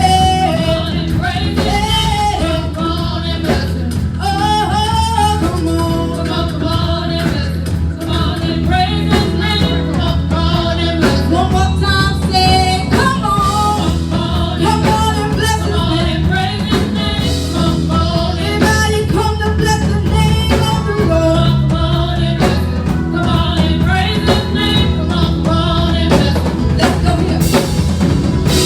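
Live worship music: voices singing over a band with a drum kit and a steady bass line.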